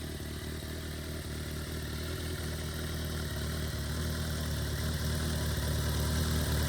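Kawasaki ZRX1200 DAEG's inline-four engine idling steadily through its exhaust, growing gradually louder.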